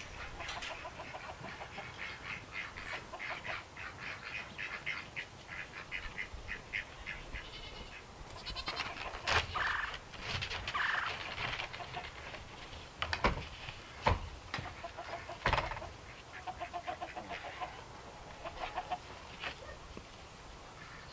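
Chickens clucking in short repeated calls, with a few sharp knocks around the middle.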